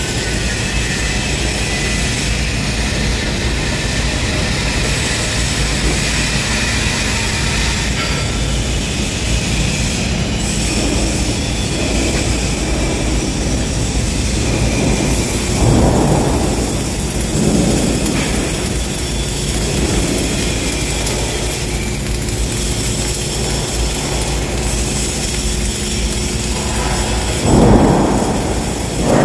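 Flux-cored arc welding on thin steel: the arc crackling and sputtering, breaking off for a stretch in the middle and starting again near the end, with a few short louder bursts around the middle. Under it all runs a loud, steady low rumble.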